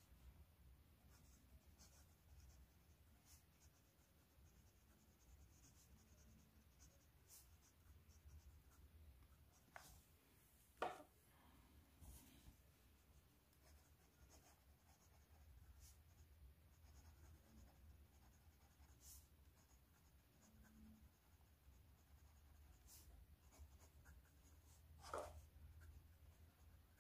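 Faint scratching of a steel-and-titanium Syahi fountain pen nib writing across paper in short strokes. Two brief louder ticks come, one about halfway through and one near the end.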